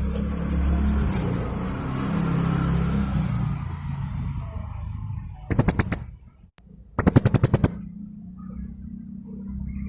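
Blue-crowned hanging parrot (serindit) giving two quick rapid-fire bursts of sharp, high notes, about ten a second, the 'tembakan' call, the second burst a little longer than the first.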